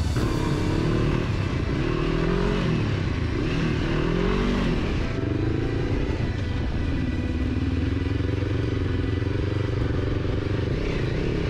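Adventure motorcycle engine revving up and down in short swells for about the first five seconds, then running more steadily at low speed. This is a slow clutch-and-throttle drill on dirt: the revs are raised with the clutch pulled in, then the clutch is let out under throttle so the rear wheel spins slowly.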